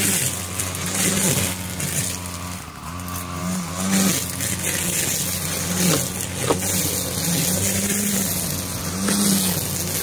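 Honey bees buzzing around an open hive: a steady drone, with single bees swooping past close by so the pitch rises and falls. A few light clicks come partway through.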